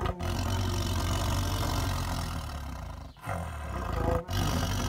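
Tiger growling: long, low, rumbling growls that break off briefly about three seconds in and again about four seconds in.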